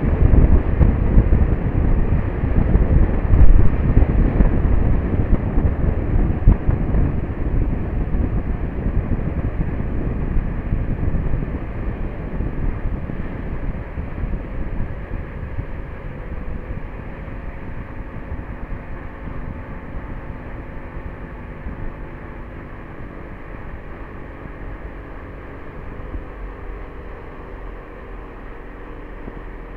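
A motor launch under way: wind buffeting the microphone over the steady drone of the boat's engine. The wind noise dies down gradually, leaving the engine hum clearer, and its pitch shifts slightly partway through.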